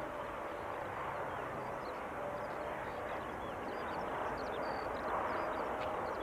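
Steady rushing hum of distant jet airliner engines, swelling slightly from about four seconds in, with many faint, high, short chirps over it.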